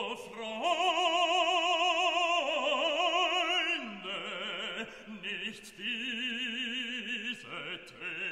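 Background music: an operatic voice singing long held notes with a wide vibrato, moving to a new note every second or two.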